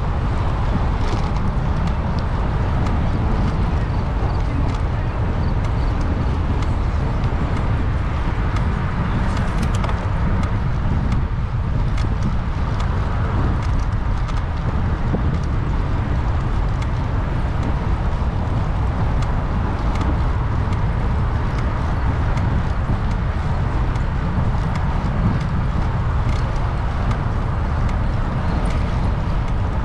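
Steady road and engine noise of a moving car, heard from inside, with a deep even rumble and no change in speed.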